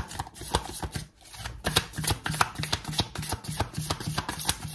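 A deck of tarot cards shuffled by hand: quick soft slaps and clicks of cards striking one another, with a brief pause about a second in.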